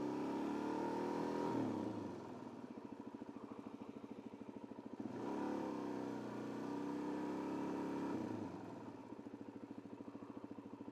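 Single-cylinder engine of a 2008 Suzuki DRZ400S dual-sport motorcycle, twice brought up in revs for a few seconds and twice dropped back to a pulsing idle, the second time near the end.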